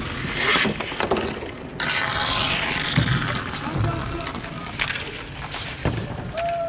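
Roller hockey play: a handful of sharp wooden clacks and knocks from sticks and the puck, spaced irregularly, over a rush of rink noise.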